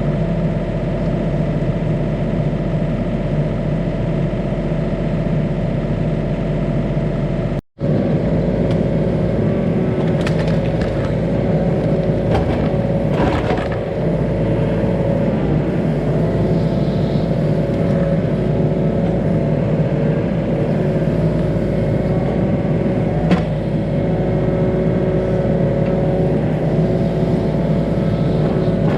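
Yanmar ViO35 mini excavator's diesel engine running steadily under work, with a few sharp cracks and knocks between about ten and fourteen seconds in and one more near twenty-three seconds. The sound drops out briefly about eight seconds in.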